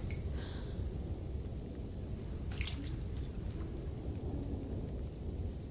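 A low steady rumble of background ambience, with a few faint water drips and one small splash about two and a half seconds in.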